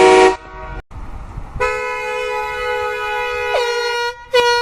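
Air horn blasting. A loud blast cuts off in the first half second. After a short gap comes a steady blast of about two seconds whose pitch sags as it ends, then a short third blast near the end.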